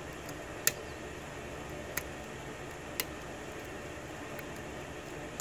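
Short sharp metallic clicks as a hook pick works the pins of a brass six-pin key-in-knob lock cylinder under a tension wrench while it is single-pin picked. The loudest click comes just under a second in, clear ones follow about a second apart, and a few fainter ticks sit over a steady hiss.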